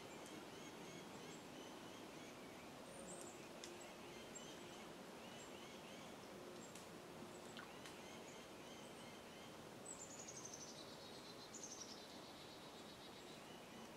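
Quiet woodland ambience with faint, scattered bird chirps. About ten seconds in, a high bird call of quickly repeated notes falling in pitch comes twice.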